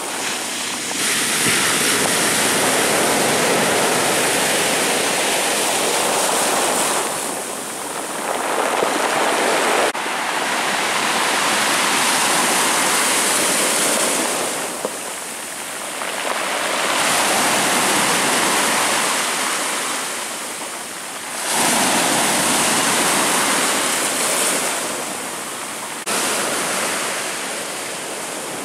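Heavy surf of a stormy sea: waves breaking and washing up the shore in about four long surges a few seconds each, with quieter ebbs between.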